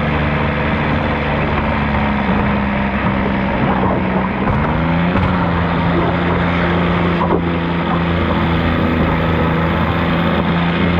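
Diesel engine of an open-class pulling garden tractor running hard under load as it drags a weight sled. Its steady note shifts once about halfway through.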